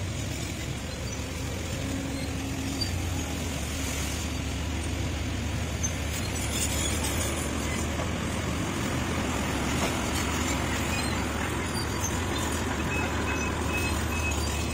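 Diesel engine of a Sumitomo hydraulic excavator running with a steady low drone.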